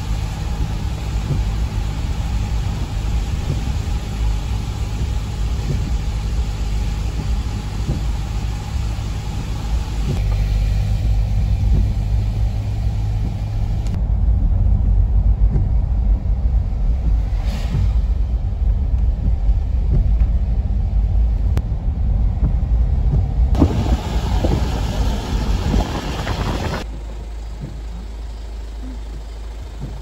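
Road noise inside a moving car on a rain-wet road: a steady low rumble of engine and tyres under tyre hiss. The hiss swells louder about four-fifths of the way through, then the sound drops quieter.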